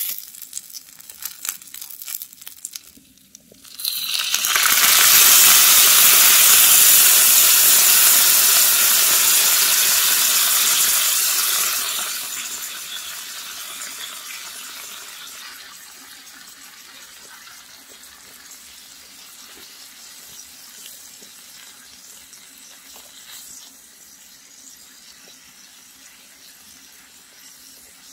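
Eel fillets crackling on a hot miniature cast-iron griddle, then about four seconds in a sudden loud sizzle as soy-sauce glaze hits the hot pan, dying down over the next several seconds to a faint steady sizzle.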